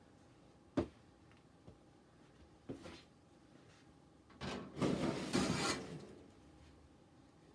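Hands handling parts on a workbench: a sharp knock, a lighter knock about two seconds later, then about a second and a half of rustling and scraping.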